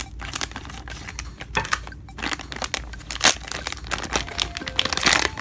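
Scissors cutting through a foil blind bag, then the foil crinkling and rustling as the packet is pulled open by hand, with many small crackles and one sharp click a little past halfway.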